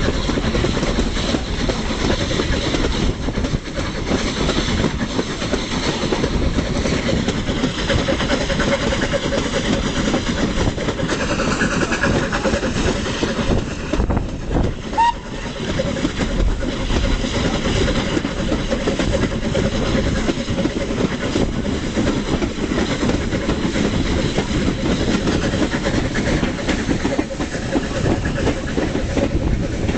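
Steam-hauled train heard from an open carriage window: a steady rumble of the coaches running on the rails, with the Terrier and M7 tank locomotives working up the gradient ahead.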